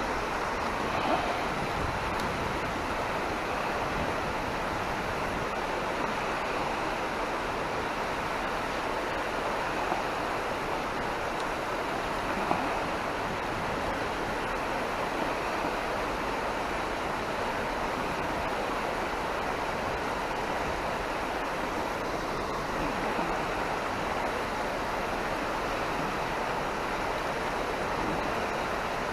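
River water rushing steadily over shallows, a constant even rush, with a couple of faint knocks near the middle.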